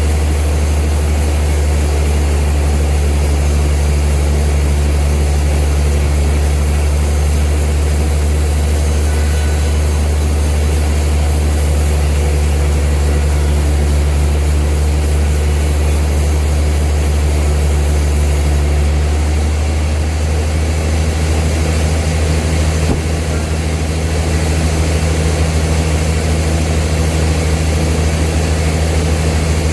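Old sawmill machinery running with a steady, loud low drone. Its tone shifts slightly about two-thirds of the way through.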